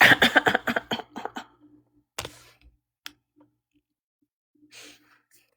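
A quick run of clicks or taps, about eight to ten a second, for around a second and a half, then a few single clicks and a brief rustle near the end.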